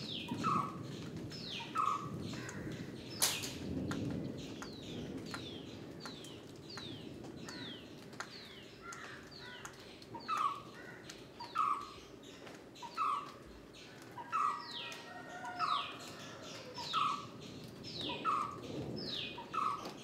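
White-cheeked barbet calling: a short repeated note, about once a second, in a long steady series.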